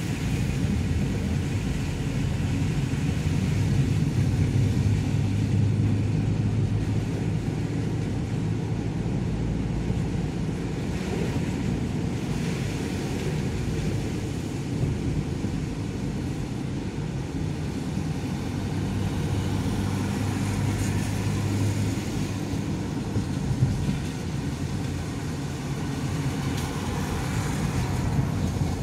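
Steady in-cabin noise of a car driving: a low engine hum under the hiss of tyres on wet asphalt.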